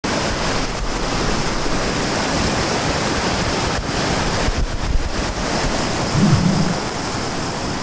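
A swollen, fast river rushing loudly over rocky rapids in a steady roar, its water high and muddy after heavy rain the night before. A thin steady high-pitched note runs above it.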